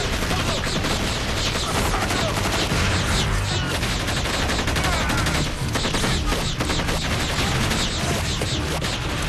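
Sustained gunfire in a staged film battle: rapid rifle fire, shot after shot with no let-up.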